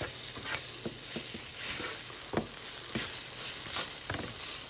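Diced onion, celery and carrot sizzling in a stainless steel skillet while a wooden spatula stirs them and scrapes the browned bits off the pan bottom, with irregular scraping clicks over a steady sizzle.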